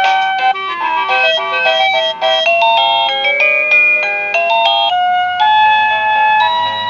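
Plug-in receiver of a 36-tune wireless doorbell playing one of its electronic ring melodies, a quick tune of bright, beep-like notes.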